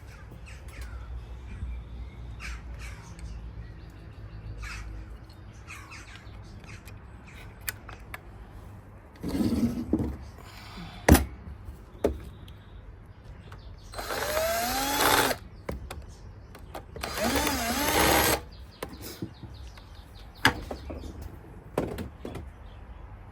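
A power drill run in two short bursts of about a second and a half each, its pitch rising and falling as it speeds up and slows, with a shorter burst earlier and scattered clicks and knocks of handling tools and parts.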